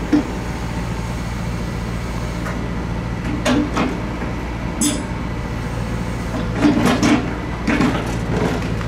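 Diesel engine of a road-rail excavator running steadily while it handles old scrap wooden sleepers, with irregular knocks and clattering as the sleepers are gripped and dropped, busiest in the last few seconds.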